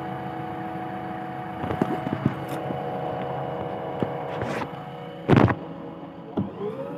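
Earthmoving machine's engine idling with a steady hum. A few knocks come about two seconds in, and a loud short rustling thump about five seconds in, as the phone is handled.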